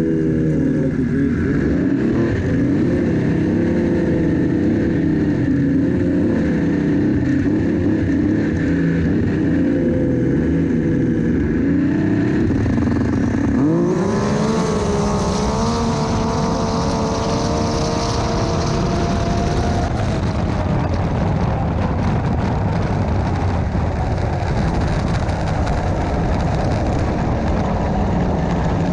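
Drag-racing snowmobile engine revving unevenly at the start line, then launching about halfway through at full throttle, its pitch climbing steeply for several seconds before the engine note drops away.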